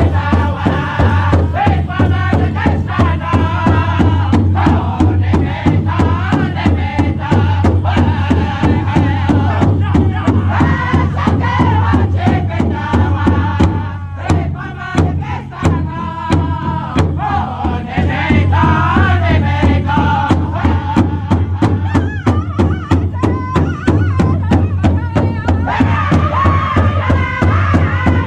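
A powwow drum group singing a chicken dance song in high, strained voices, several singers beating one large bass drum in unison with a steady, even beat. The singing eases for a moment about halfway through.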